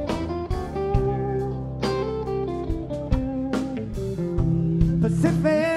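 A live rock band playing an instrumental passage: guitar and keyboards over bass and drums. A wavering held note comes in near the end.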